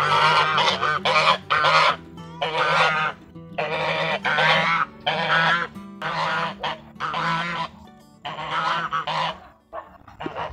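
Domestic geese honking over and over, loud harsh calls in quick succession, that stop about a second before the end.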